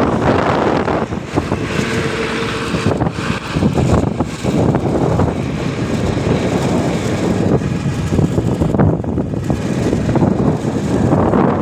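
Wind buffeting the microphone: a loud, rough, gusting rumble that rises and falls unevenly.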